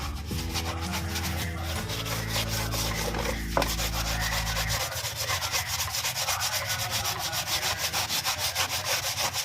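Fast, rhythmic scrubbing, about five rubbing strokes a second, as a part is cleaned by hand. A low hum runs underneath and stops about five seconds in.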